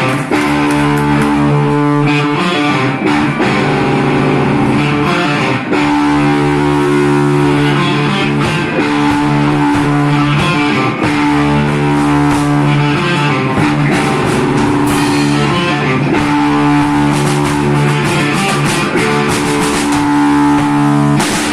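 Children's rock band playing a hard rock song live: electric guitar chords held over a steady drum-kit beat.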